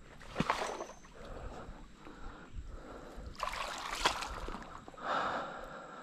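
Water sloshing and splashing in a few separate bursts: once about half a second in, again around three and a half to four seconds, and once more near five seconds.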